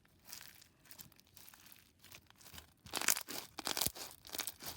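Slushy bead slime being squished and stretched by hand, making wet crackling, tearing and popping sounds. It is faint at first and grows louder and denser from about three seconds in.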